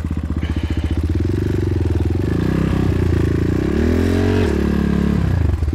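Kayo T4 enduro motorcycle engine running at low revs. Just past the middle it revs up, the pitch climbing for about two seconds, then drops back suddenly to a low steady run.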